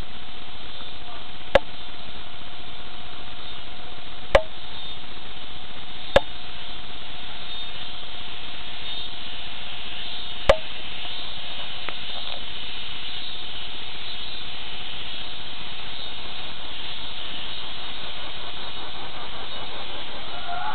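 Steady hiss with a faint constant whine underneath, broken by four sharp clicks spaced a few seconds apart in the first half.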